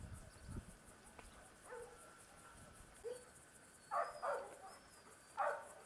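Dogs barking: two short barks about four seconds in and another near the end, over a quiet outdoor background.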